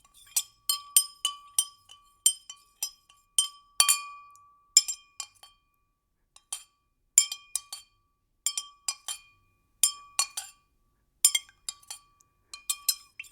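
Liquid being stirred in a glass, the stirrer clinking against the glass wall in quick clusters of strikes, each ringing briefly at the same pitch. There is a pause of about a second and a half a little past the middle.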